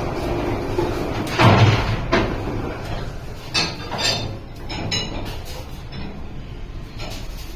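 Irregular metal knocks and clanks of sheet-iron work, the loudest about one and a half seconds in, over a steady low hum.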